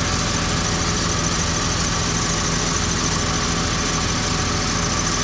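Engine idling steadily, an even low hum with no change in pace.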